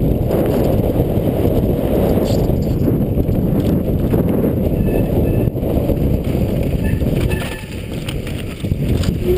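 Mountain bike riding fast down a gravel trail: a steady rumble of tyres on loose gravel mixed with wind buffeting the camera microphone. A few short high squeaks come about halfway through, and the rumble eases briefly near the end.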